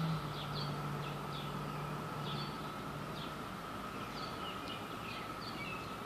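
A distant chorus of Brood II periodical cicadas making one steady, even drone. Birds chirp briefly and irregularly over it, and a low hum fades out about halfway through.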